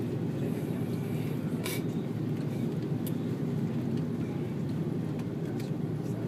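Steady low rumble inside the cabin of an Airbus A330 taxiing after landing: engines running at low power and the aircraft rolling, with a brief click just under two seconds in.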